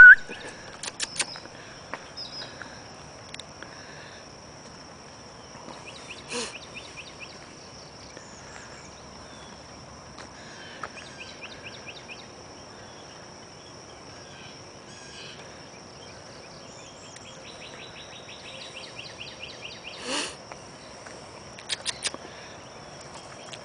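Outdoor night ambience of insects: a steady high-pitched trill, with several runs of rapid chirping pulses. Two brief soft knocks or rustles break in, at about six seconds and near twenty seconds.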